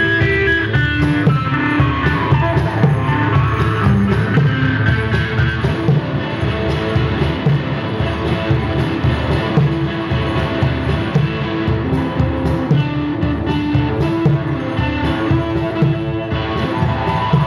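Live instrumental music: an electric guitar playing a repeating riff over steady, busy percussion.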